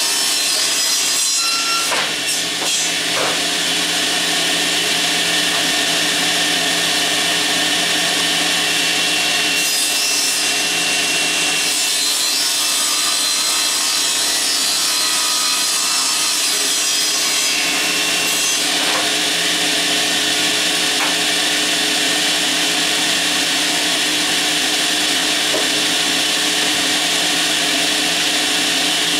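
Table saw running steadily while its blade cuts through a sheet of plywood pushed along on the sliding table.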